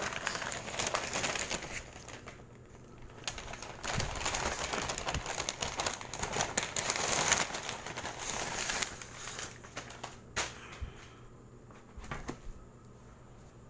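Shopping bag and its paper wrapping rustling and crinkling as a shoe box is pulled out, with a few sharp knocks from the box toward the end.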